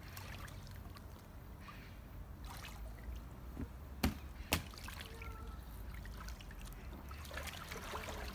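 Pool water trickling and lapping as hands move through it in an inflatable above-ground pool. Two sharp clicks about half a second apart come about four seconds in.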